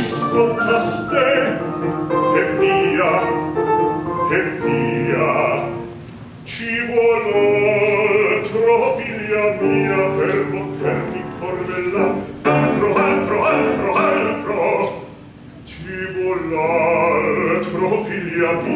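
Operatic bass voice singing a comic aria in Italian, accompanied by a grand piano.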